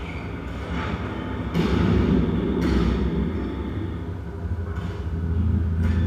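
Live electronic music from the Kyma sound design system: a dense, low rumbling texture built from processed, granulated elevator field recordings, swelling about two seconds in and again near the end. A few sharp percussive hits cut through it.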